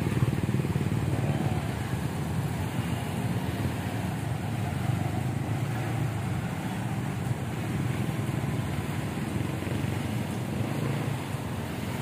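Motorcycle engine running at low road speed while riding, with steady road and wind noise.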